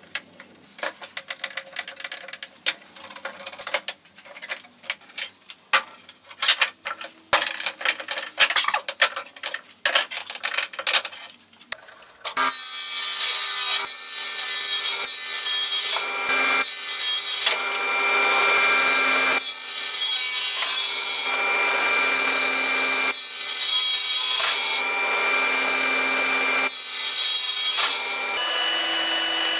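Scattered clicks and knocks of bar clamps being handled on a glued-up wooden panel. About twelve seconds in, a sliding table saw starts cutting, loud and continuous, with a steady blade whine, as it crosscuts the glued-up hardwood panel into strips.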